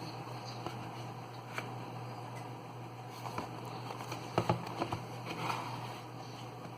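Hands handling packaging: scattered soft clicks and rustles, with a cluster of sharper taps about four to five seconds in, over a steady low hum.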